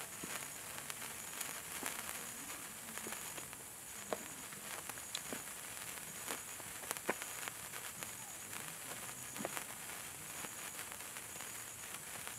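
A 36-inch gold sparkler burning: a steady fizzing hiss broken by irregular sharp crackles and pops.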